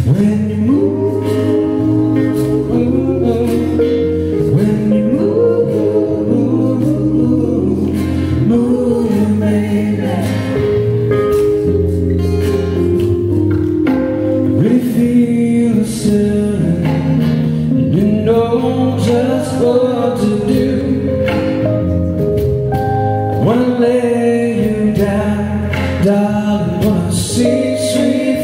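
A live band playing a song: singing voices with backing harmonies over acoustic guitar, electric bass and keyboard, with regular percussion hits.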